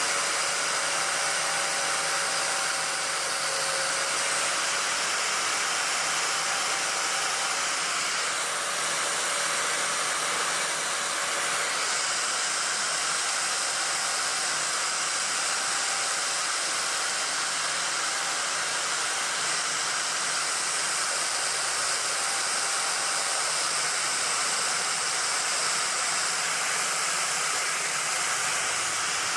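Small electric smoothing tool running steadily with a whirring hiss as it smooths the sharp spines and edges of a wooden twig perch.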